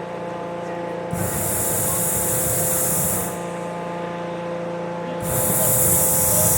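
Hot-air balloon propane burner firing in two long blasts of hissing roar, the first about a second in and lasting about two seconds, the second starting near the end, over a steady hum.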